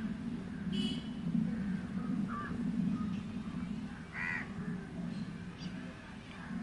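Crows cawing several times, short separate calls, over a steady low hum.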